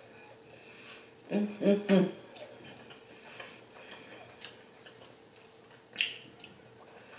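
A woman chewing and sucking the meat off chicken wings: soft wet mouth clicks, with a few short closed-mouth "mm" hums about a second in. A sharp smack comes about six seconds in as she pulls meat from a wing bone.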